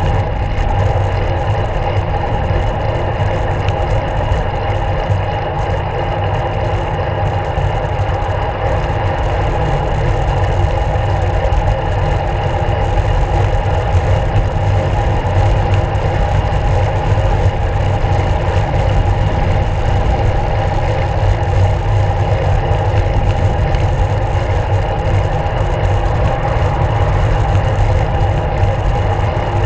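Steady wind rumble and road noise on a handlebar-mounted action camera while riding a road bike, loud and unbroken, heaviest in the low end.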